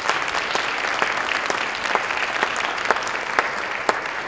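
Audience applauding, a dense steady clapping with single sharp claps standing out.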